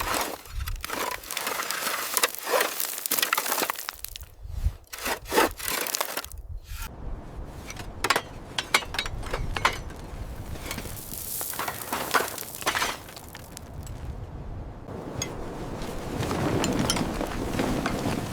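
Hand work on rusty motorbike parts: a run of sharp scraping strokes and knocks, then steadier rubbing and scraping that grows fuller near the end.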